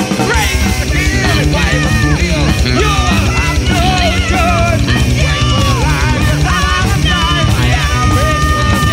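Heavy metal music, an instrumental passage: a lead electric guitar line bending and wavering in pitch over fast, steady drumming and rhythm guitar.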